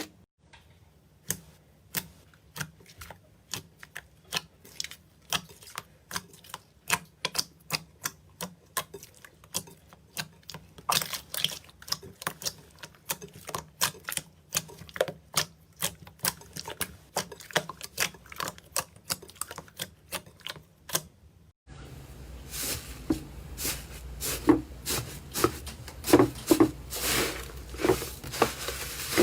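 Slime being pressed and worked, giving a fast, irregular run of sharp clicks and pops. About 21 seconds in the sound cuts to another clip, louder, with a steady hiss under the crackling pops.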